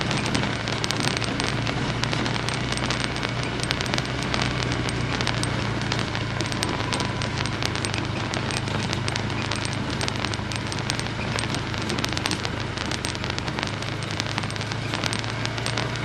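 Off-road vehicle driving a rough trail: a steady low engine drone under a dense, continuous crackling and clicking.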